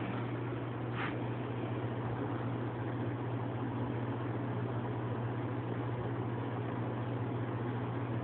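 Steady low hum with an even hiss behind it, like a fan or appliance running in the room, broken only by one short click about a second in.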